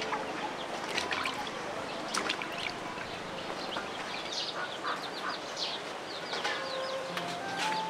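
Animal calls: many short high-pitched chirps in quick runs, with a few sharp clicks.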